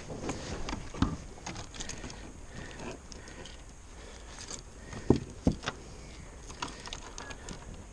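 Scattered light clicks and knocks of fishing gear being handled on a plastic kayak, with one knock about a second in and two sharper knocks close together about five seconds in.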